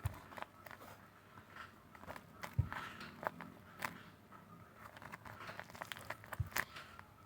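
Handmade 3D paper squishies being handled: paper crinkling and rustling with scattered light clicks, and two soft thumps as they are set down.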